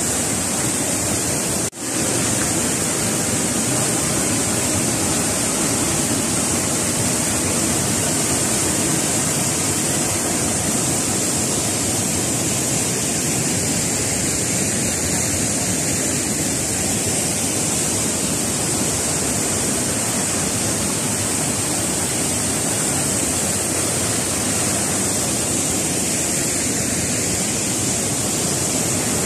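Steady rushing of a waterfall and the river below it, an even hiss, with a brief dropout about two seconds in.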